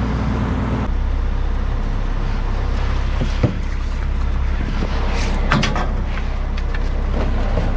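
Fishing boat's engine running steadily, with a sharp knock about three and a half seconds in and a few clattering knocks a couple of seconds later.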